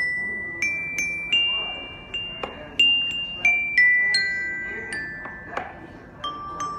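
Metal bars of a glockenspiel struck one at a time with a mallet: about a dozen ringing notes at an uneven, unhurried pace, stepping up and down in pitch, each note still ringing as the next is struck.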